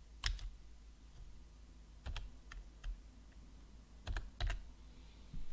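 Computer keyboard being typed on slowly: about seven separate key clicks with uneven pauses between them, some coming in quick pairs.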